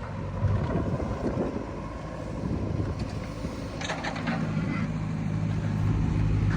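Diesel engine of heavy machinery running steadily, its hum growing louder in the second half, with a few short clanks around three to four seconds in.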